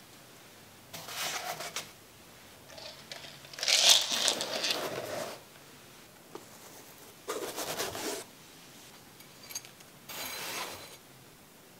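Foam kit trays being handled and set down on a cutting mat: four separate bursts of scraping and rustling, about a second each, the loudest about four seconds in.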